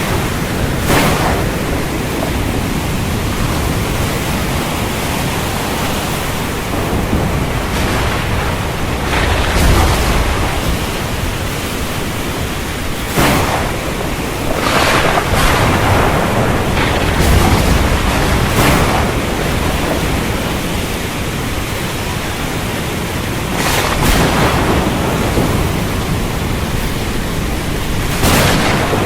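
Stormy sea: a steady rush of wind and surf, with louder surges every few seconds as gusts hit and waves break.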